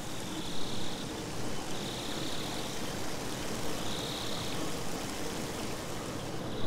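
Steady rushing of water, with a short higher hiss that comes back about every two seconds.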